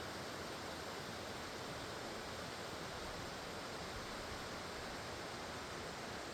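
Steady rushing of a nearby waterfall, an even hiss of falling water with no breaks or changes.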